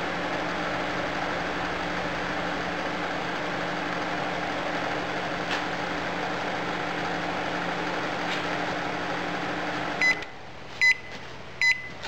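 Steady fan noise with a low electrical hum from the microwave-inverter induction heater running. It cuts off about ten seconds in, and the microwave's control panel starts beeping, about three short high beeps less than a second apart, as its timer runs out.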